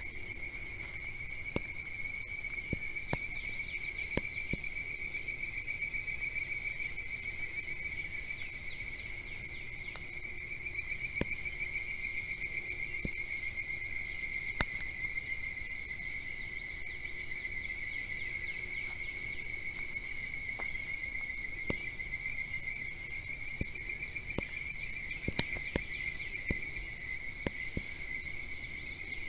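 A steady, high-pitched insect chorus trilling without a break. A second, higher trill joins about a third of the way in and drops out past the middle, over scattered faint clicks and knocks.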